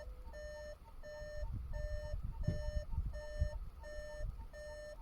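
Car parking-sensor warning beeping in reverse gear: a steady run of short, evenly spaced pitched beeps, about one and a half a second. A few low bumps sound underneath in the middle.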